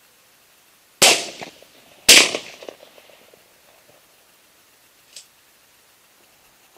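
Two shotgun shots about a second apart, each followed by a short echo dying away, then a faint short click a few seconds later.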